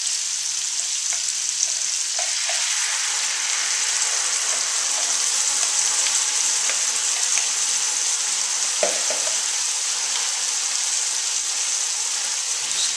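Chicken pieces and chopped onions frying in oil in a pan: a steady sizzle with small crackles, as a pureed tomato, onion, garlic and ginger sauce is poured over them and a spatula starts stirring it in near the end.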